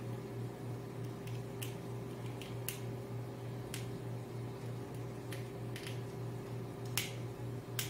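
Small sharp clicks, irregular and roughly one a second, from a screwdriver working the terminal screw of a handheld selector switch as a wire is fastened in, over a steady low hum.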